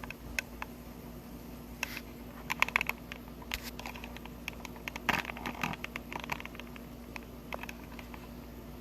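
Scattered small clicks, taps and rubbing from a camera being handled on its mount as it is tilted down and zoomed, over a steady low electrical hum.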